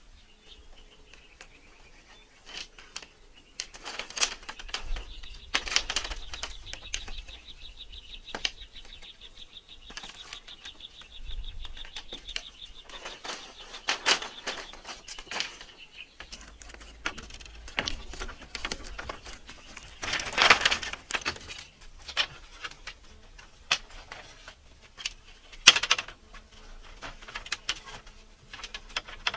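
Hand tools working dry earth and bamboo: irregular knocks, taps and scraping strokes, a few of them louder. A high, steady insect buzz runs under them until about halfway through, then stops.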